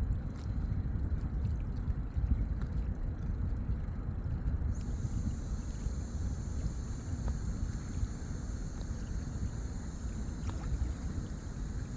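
Outdoor lakeside ambience: a steady low rumble with no clear events. A thin, high, steady whine joins about five seconds in and holds.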